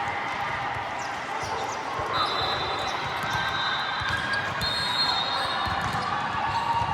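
Busy indoor sports-hall din: crowd chatter with repeated thuds of a ball and feet on the court floor. Two drawn-out high squeaks or whistle tones come about two seconds in and again near five seconds.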